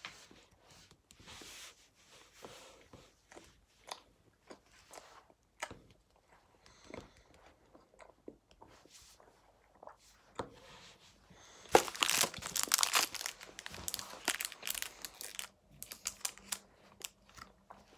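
Quiet chewing and crunching of food with scattered small clicks. About two-thirds of the way through, packaging starts crinkling and tearing, louder and dense.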